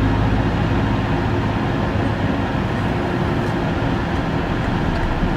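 Steady rumble and rushing noise of a vehicle in motion.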